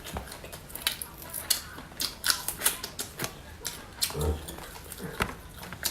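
Irregular clicks and light knocks, several a second, like things being handled, with a brief low sound about four seconds in.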